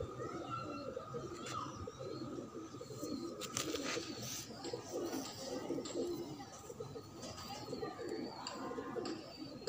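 Many domestic pigeons cooing continuously, a dense overlapping murmur of low warbling calls, with a couple of brief knocks about three and a half seconds in.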